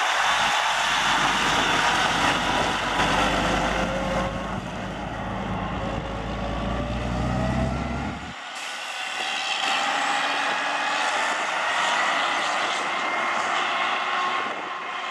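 CAT C15 diesel engine of a Western Star 6900XD heavy truck running under way, its pitch falling and rising as it drives. A deep rumble drops out suddenly about eight seconds in, leaving a thinner engine sound as the truck moves away.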